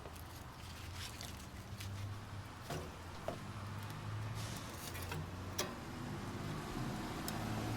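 Fire being started in an offset smoker's firebox: a low uneven rumble with scattered sharp clicks and knocks.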